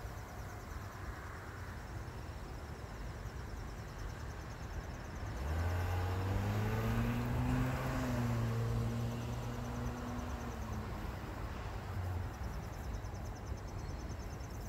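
A motor vehicle drives past, its engine hum swelling from about five seconds in, rising a little in pitch and then sinking as it fades by about eleven seconds. Insects trill faintly in the background.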